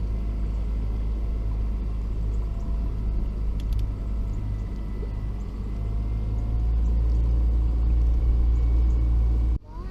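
Boat's outboard motor running steadily, a low rumble with a faint steady whine over it. The sound drops out suddenly near the end.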